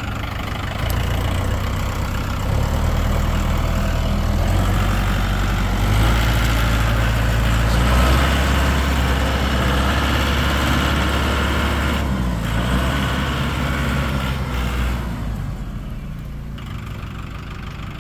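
Tractor engine working, revving up about a second in and holding a higher, louder running speed before easing back down near the end.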